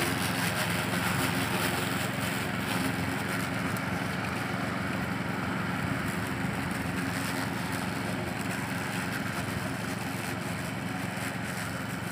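Petrol walk-behind lawn mower engine running steadily while cutting grass, growing slowly fainter as it moves away.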